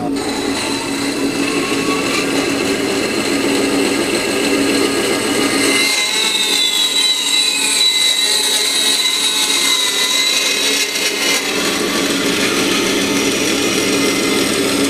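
Jet 14-inch bandsaw, driven by a treadmill motor through a speed controller, running slowly with a 3/4-inch 10-tooth bimetal blade cutting metal. A steady running hum, joined about six seconds in by a high whine, with one tone sliding down in pitch over the next few seconds.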